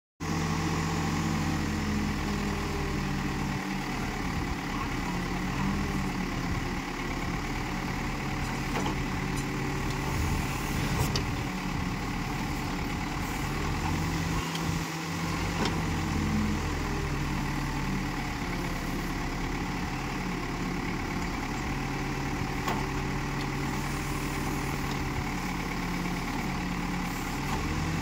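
Escorts Digmax backhoe loader's diesel engine running steadily as the backhoe arm digs soil, its pitch rising and falling as the hydraulics take load, with a few faint knocks.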